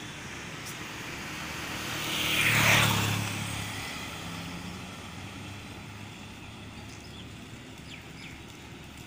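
Highway traffic: a motorcycle passes close by a little under three seconds in, its engine and tyre noise swelling and then fading as it moves away. Steady traffic noise continues after it.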